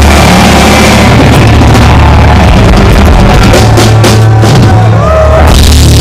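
Live rock band playing loud, with electric guitars, bass and a drum kit.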